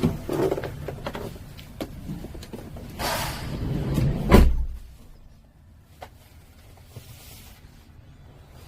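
Van doors or camper cabinet panels being handled, with clicks and rattles, then a sliding noise that ends in a heavy slam about four seconds in.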